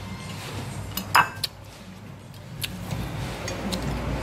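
Metal spoons clinking and scraping against ceramic plates, with one louder clatter about a second in and a few lighter clicks, over a low steady hum.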